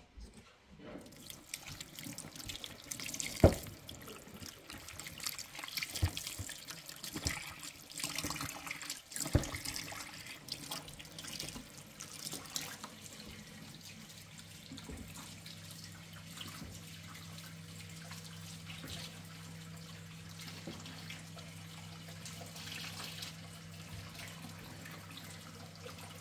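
Water running and splashing, as in washing or pouring, with several sharp knocks in the first ten seconds. A low steady hum joins about halfway through.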